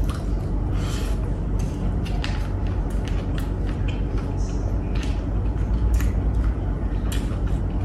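A person eating with the hand from a paper food wrap: scattered chewing and mouth clicks and crinkles of the paper, over a steady low hum.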